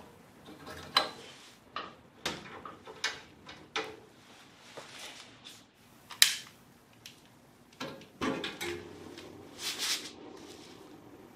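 A string of irregular sharp clicks and clacks from hands working an old gas furnace's gas control valve knob and a long-reach lighter while relighting the pilot.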